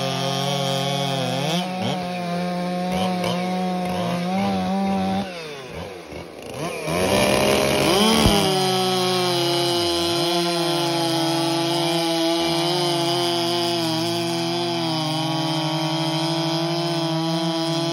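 Two gas chainsaws cutting side by side through a log, their engines at full revs with the pitch wavering. About six seconds in the saws drop away briefly, then rev back up and carry on cutting steadily.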